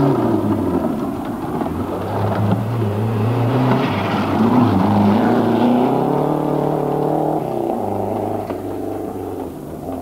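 Renault 11 Turbo rally car's turbocharged engine at full throttle on a gravel stage, its pitch climbing and dropping several times as it drives past, with tyres on loose gravel.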